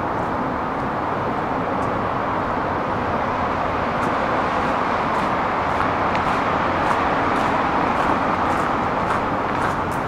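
Steady road traffic noise, a continuous rush of tyres on pavement, swelling slightly in the second half, with faint light footsteps ticking over it.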